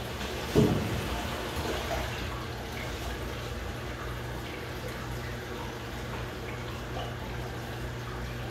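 Top-loading washing machine filling its drum with water, a steady rush over a low hum, while a load of white clothes is dropped in. One short thump a little over half a second in.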